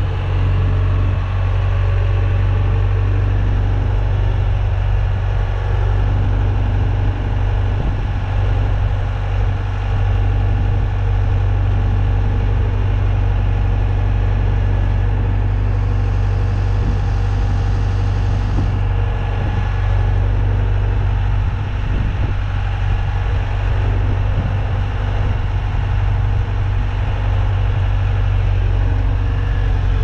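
Diesel engine of an Ingersoll Rand Titan 3870 wheeled asphalt paver running steadily with a strong low hum as the paver drives slowly.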